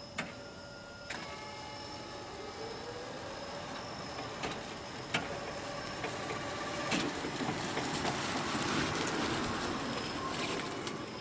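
1980 Comuta-Car electric car driving: its motor whines and rises in pitch as it speeds up, with a few sharp clicks. Then a rushing drive noise grows steadily louder.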